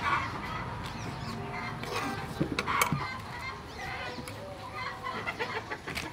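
Chickens clucking, several short calls scattered through, with a few sharp taps of a knife and hands on a wooden cutting board as oyster mushrooms are torn and cut.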